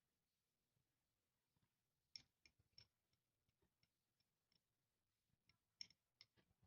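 Near silence with faint, scattered short clicks, clustered in two brief groups about two seconds in and again near the end.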